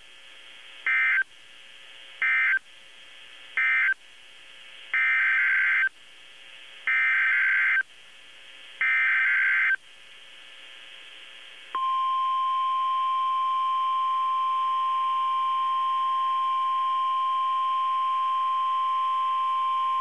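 NOAA Weather Radio alert tones. First come three short chirps of SAME digital data (the end-of-message code) and three longer one-second SAME header bursts, which code the warning as a Hurricane Warning. About twelve seconds in, the steady 1050 Hz warning alarm tone starts and holds.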